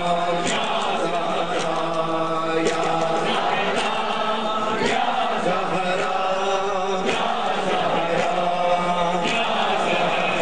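A noha, a Shia lament, chanted by many voices together, with the slaps of chest-beating (matam) keeping a steady beat about once a second.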